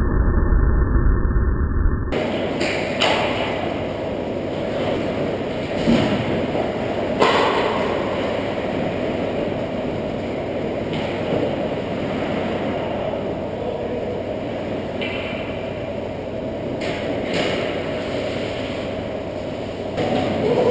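Ice hockey play: skate blades scraping the ice and the clack of sticks and puck, with several sharp knocks spread through, over a steady rink hum. It opens with about two seconds of muffled low rumble.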